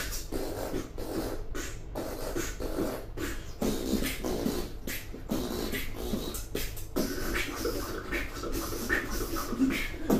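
Vocal beatboxing: a run of sharp percussive mouth sounds mixed with short pitched, hummed notes.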